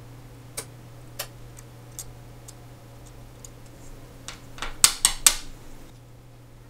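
Small, sharp metallic clicks of brass tweezers and a screwdriver touching parts of a Rolex calibre 3035 watch movement: a few scattered ticks, then a quick run of louder clicks about five seconds in. A steady low hum sits underneath.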